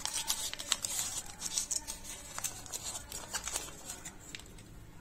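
Foil inner wrapper of a KitKat bar crinkling and crackling as fingers peel it open, a dense run of crackles in the first two seconds, then sparser ones.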